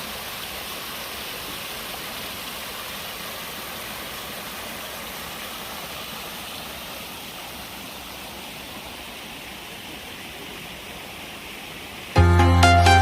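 Steady rush of running water, an even hiss that eases slightly in the second half. About twelve seconds in, loud electronic music with a beat cuts in suddenly.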